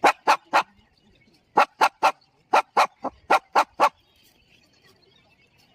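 Shih tzu puppy barking in quick high yaps, about four a second, in three runs: three, three, then six. About a dozen barks in all, stopping after about four seconds.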